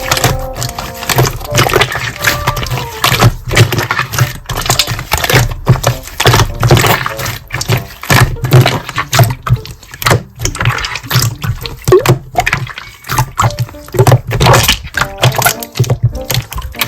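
Slime being squeezed and pressed by hand, with a dense run of wet crackling and popping clicks.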